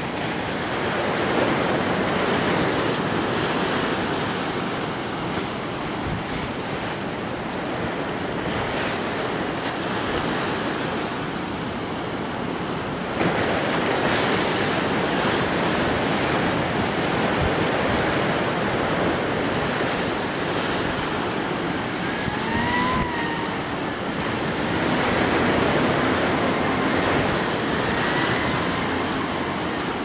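Caribbean Sea surf breaking on rocks and a seawall: a continuous rush of waves that swells and eases, with wind buffeting the microphone.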